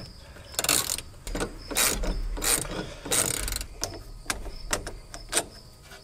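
Ratchet wrench clicking in several short, irregular bursts as it works the fastener holding the control lever on a skid steer's hydraulic pump.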